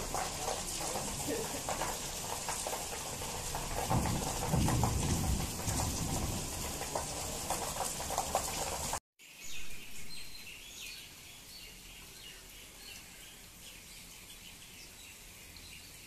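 Heavy monsoon rain pouring in a steady hiss, with a low rumble about four seconds in. After a short dropout at about nine seconds the sound turns much quieter: lighter rain with birds chirping.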